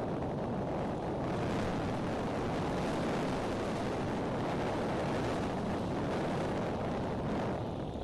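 Strong gusty wind blowing across an outdoor microphone, a steady rushing noise that swells a little in gusts.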